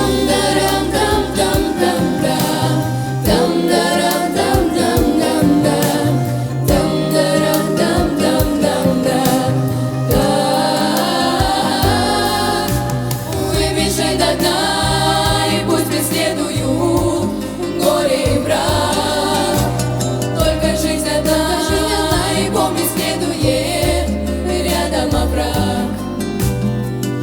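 Song with instruments and several voices singing together.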